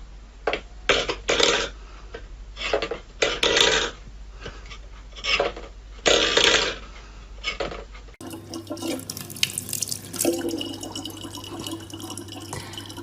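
Water splashing in irregular bursts, then, after a cut about eight seconds in, water running more steadily over a low steady hum.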